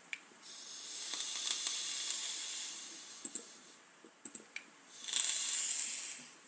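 Vape mod being drawn on: two long hissing pulls of air through the atomizer with the coil sizzling, and a few light clicks between them.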